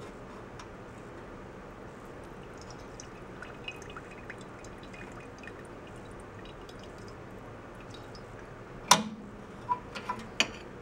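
Gasoline dribbling and dripping from a snowblower carburetor's float-bowl drain into a ceramic mug, drained to check it for water. A sharp click about nine seconds in, then a few lighter clicks.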